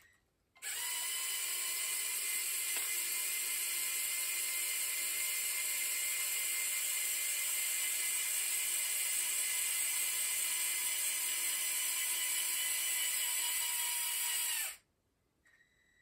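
Electric motor and gearing of a motorised Lego Technic Volvo FH16 tipper truck give a steady high whine as they lower the raised tipper body. The whine starts suddenly about half a second in and cuts off about a second before the end, once the body is down.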